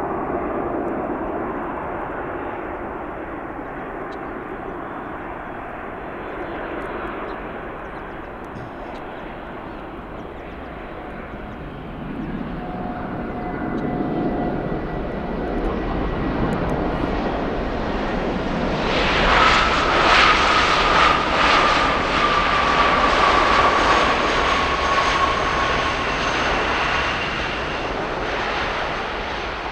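Jet engines of a Boeing 737 MAX 9 (CFM LEAP-1B turbofans) as it lands. A steady rumble grows louder from a little under halfway through. It is loudest about two-thirds through, with a high whine that falls slowly, then eases off as the airliner rolls out on the runway.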